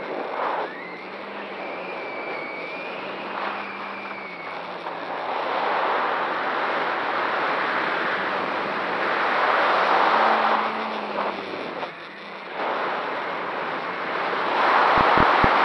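Large X-Class racing quadcopter on 13-inch propellers in flight, heard from its onboard camera: a rushing of air and propeller noise that swells several times with speed and throttle, over a low propeller hum that shifts in pitch. A whistle from the propellers is heard in the first few seconds.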